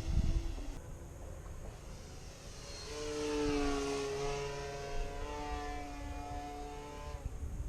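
Radio-controlled model airplane's motor and propeller whining as it flies past, growing louder about three seconds in and then fading with a slight drop in pitch. Wind rumble on the microphone underneath.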